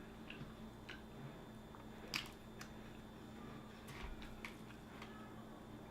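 A person chewing a mouthful of Italian sub sandwich close to the microphone: scattered soft, wet mouth clicks. The sharpest comes about two seconds in, with a cluster of them around four seconds.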